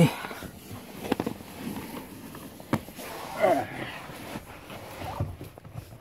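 Handling and movement noise of a person squeezing into a car's footwell under the dashboard: rustling with a few scattered knocks, and a brief vocal sound falling in pitch about three and a half seconds in.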